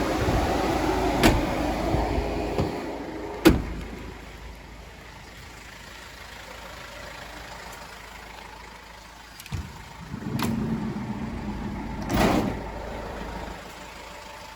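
Doors of a Vauxhall Movano van being opened and shut, with a loud slam about three and a half seconds in and another thud near twelve seconds, over the steady hum of the van running.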